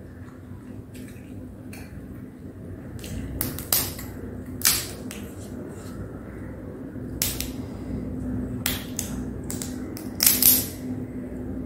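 Cooked crab shell cracking and snapping as it is pulled apart by hand: a run of irregular sharp cracks, the loudest pair about ten seconds in.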